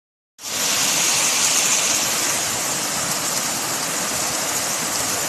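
Mountain stream rushing over rocks, a steady loud noise that starts about half a second in.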